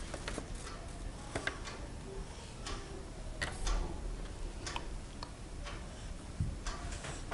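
Scattered light clicks and taps at uneven intervals over a low steady hum.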